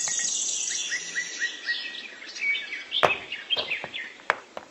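Small birds chirping, many short repeated chirps, with a few sharp clicks from about three seconds in as the plastic toy trailer and tractor are handled.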